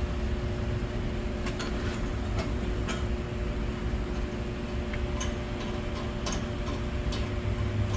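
Scattered light clicks and ticks of metal parts being handled, over a steady machine hum.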